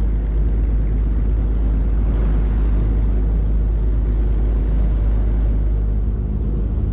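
An engine running steadily, a loud, even drone with a deep hum.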